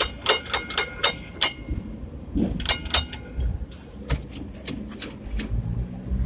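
A Hong Kong tram's foot-operated gong, rung in a quick run of about five dings, then three more about a second later. The tram's low running rumble sits underneath.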